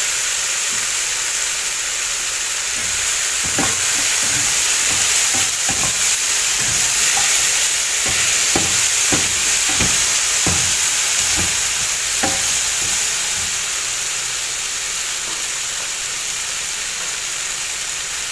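Cubed squash and vegetables sizzling steadily in a stainless steel frying pan as they sauté. A slotted spatula stirs them, knocking and scraping against the pan irregularly; the knocks stop about two-thirds through, leaving only the sizzle.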